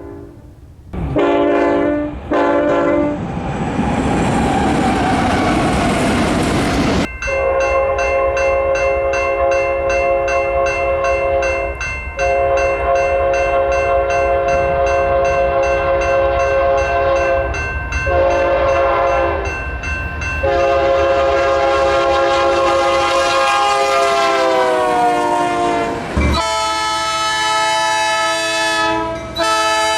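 A locomotive sounding a chord of several notes. It gives two short blasts and a hissing swell, then the grade-crossing signal of long, long, short, long, and the pitch sags as the last long blast dies. Near the end there is an abrupt cut to another locomotive's chord of different notes.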